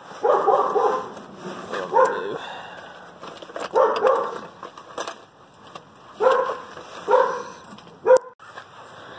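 A dog barking: several short, pitched barks at irregular intervals, the sharpest one near the end.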